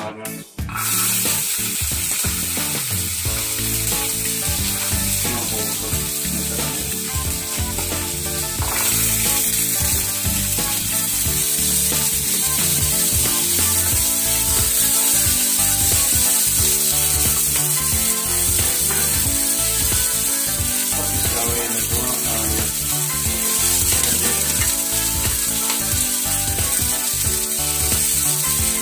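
Chopped snake beans and green beans stir-frying in hot oil in a wok: steady sizzling that starts abruptly about a second in, with the spatula scraping against the pan.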